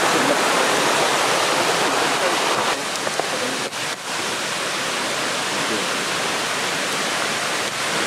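Mountain stream rushing, a steady wash of water noise that drops a little in level about three seconds in.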